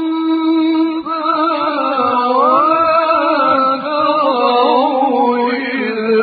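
A male reciter chanting Quranic recitation in the slow melodic mujawwad style. A held note gives way about a second in to a long ornamented phrase whose pitch rises, wavers and falls.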